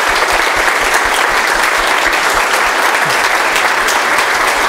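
Audience applauding after a talk, a dense and even stream of many people's claps that holds steady throughout.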